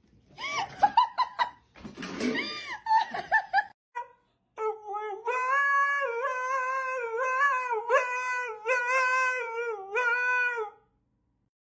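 A husky howling: a string of long, wavering, high howls, each a second or so, lasting about six seconds from a little before the middle. Before it, a few seconds of laughter and short bursts of sound.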